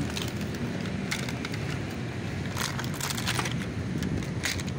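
Steady low drone of road traffic, with scattered crinkling of thin plastic in the second half as water is poured from a plastic container.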